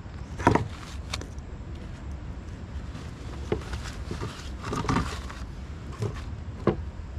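Irregular knocks and rustling as rope, a cork float and a collapsible crab pot made of steel rings and netting are handled in a kayak, over a steady low rumble. The sharpest knocks come about half a second in and shortly before the end.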